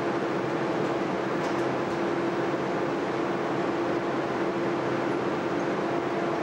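Cooling-air blowers and power equipment of large Marconi high-frequency (shortwave) broadcast transmitters running: a steady rushing noise with a steady mid-pitched hum.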